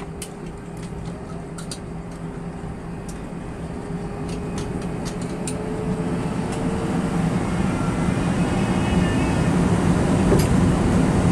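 Airbus A321-131 turbofan engines spooling up for the takeoff roll, heard from inside the cabin: a steady engine noise that grows louder throughout, with a faint whine gliding slowly upward in pitch over the first several seconds and a few small rattles and clicks from the cabin.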